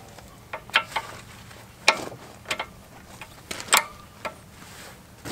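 Hydraulic quick-connect couplers being worked onto the ports of a compact tractor loader's grapple valve: a string of sharp metallic clicks and clacks at irregular intervals.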